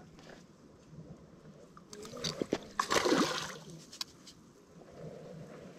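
Water splashing at the bank's edge, a burst of splashes about two to three and a half seconds in, as a hooked fish is played toward a landing net.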